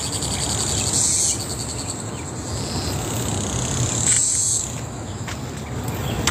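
Cicadas buzzing in high-pitched, pulsing swells, loudest near the start and again about four seconds in, over steady low background noise.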